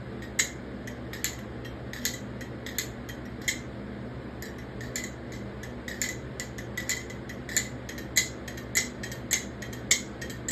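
Nabalis Impulse aluminum balisong trainer being flipped: the handles and blade snap open and shut with sharp metallic clicks and clacks, roughly two a second, irregular and coming faster and louder in the second half.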